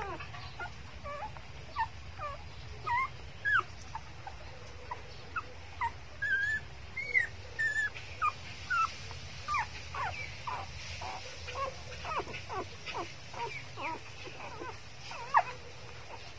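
Newborn puppies squeaking and whimpering as they nurse at the mother dog: many short, high squeaks that slide in pitch, coming one or two a second.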